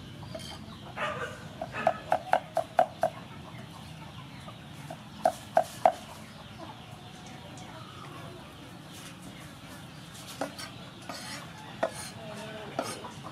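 Steel cleaver chopping cooked snail meat on a thick wooden chopping board. A quick run of about six chops comes about two seconds in, three more follow around the middle, and a few single strokes come near the end.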